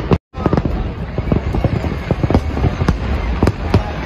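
Aerial fireworks display: a dense, irregular barrage of shell bursts and crackling reports, many bangs a second. The sound cuts out for a moment just after the start, then carries on.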